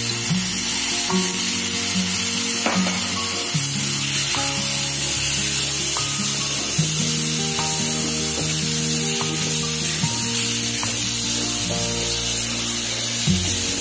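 Prawns in onion-tomato masala sizzling in a frying pan as a little water is poured in and the mix is stirred with a wooden spatula, under background music.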